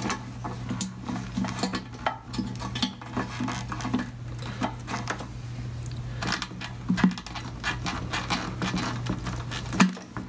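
Irregular light metallic clicks and clinks of hands working the oil-line hose fittings and clamps on a Harley-Davidson Shovelhead oil bag, over a steady low hum.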